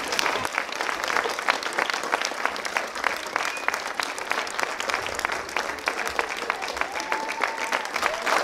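Audience applauding steadily, a dense stream of hand claps.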